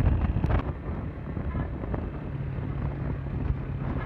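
Road noise from a moving vehicle with wind buffeting the microphone, loudest in the first half second, and a steady low engine hum coming in about two seconds in.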